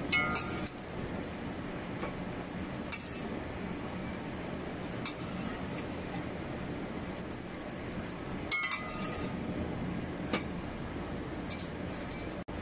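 A metal spatula clinks against a wok several times while corn fritters are scooped out of the frying oil. The clinks come over a steady background noise, with the loudest near the start and about two-thirds of the way through, some with a short metallic ring.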